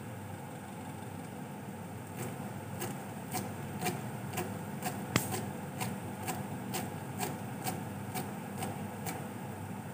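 Kitchen knife chopping fresh coriander on a cutting board, a regular knock about twice a second starting about two seconds in, with one sharper, louder knock near the middle.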